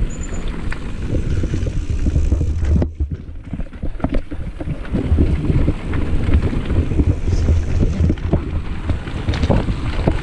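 Ride noise from a mountain bike on a dirt singletrack: wind buffeting the camera microphone as a low rumble, with frequent clatters and knocks as the bike rattles over bumps in the trail. The noise eases briefly about three seconds in.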